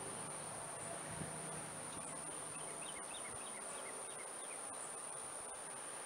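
A continuous high-pitched insect trill, with a faint run of short high chirps about halfway through.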